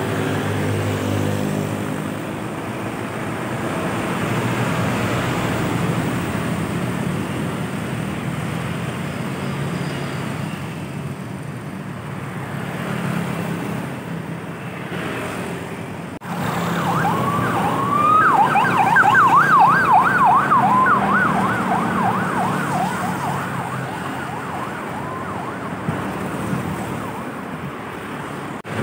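Road traffic passing close by, with a vehicle engine humming loudly at the start. About halfway through, an electronic siren sweeps rapidly up and down for about six seconds in a fast yelp, the loudest sound in the stretch, as a vehicle passes.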